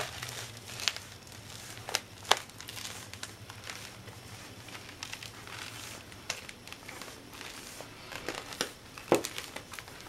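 Ceramic bathroom floor tiles crunching and crackling underfoot as someone walks on them barefoot, with irregular sharp cracks, loudest about two seconds in and again near the end. The crackling under the tiles is a sign that something is not right beneath the floor.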